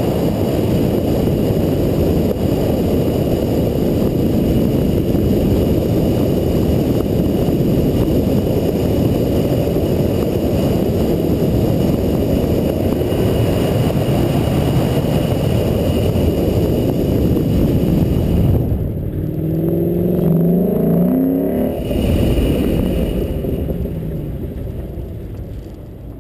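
The 5.0 V8 of a 2012 Mustang GT with a Borla ATAK exhaust, driven hard through an autocross course, revving up and down between corners. From about 19 to 22 seconds in, the engine note is heard plainly rising and falling in pitch. It quietens over the last few seconds as the car slows.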